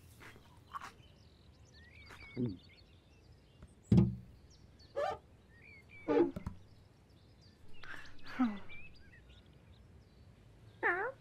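Cartoon cat sound effects voiced by a person: a string of short mews and chirrups that slide in pitch, one of them wavering near the end, with a thud about four seconds in. Faint birdsong chirps run underneath.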